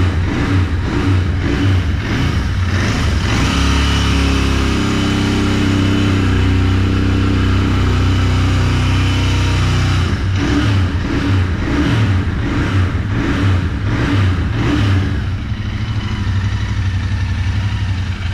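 Royal Enfield Interceptor 650's air- and oil-cooled 648 cc parallel twin being revved for a sound check. It runs at idle, is held at raised revs for several seconds in the middle, then is blipped several times in quick succession before settling back to idle.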